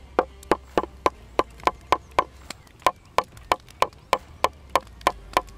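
A hatchet pounding a nail into a pine wood plank: a steady run of sharp strikes, about four a second, each with a short metallic ring, with a brief pause about halfway through.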